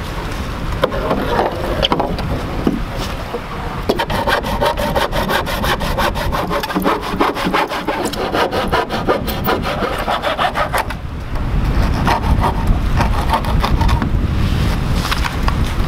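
Hand pruning saw cutting through weathered barn-wood boards in steady back-and-forth strokes. The strokes turn short and rapid for several seconds in the middle.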